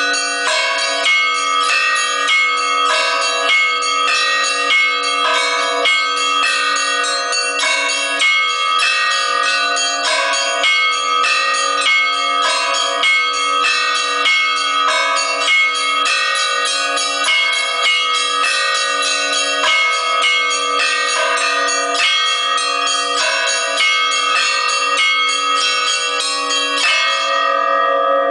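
Orthodox church bells rung together in a zvon: small bells struck in a rapid, dense pattern over the steady ringing of larger bells. Near the end the quick strikes of the small bells drop away briefly while the larger bells keep ringing.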